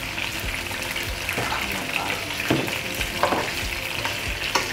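Food sizzling in hot oil in a wok, stirred with metal tongs, with a few sharp knocks of the tongs against the pan.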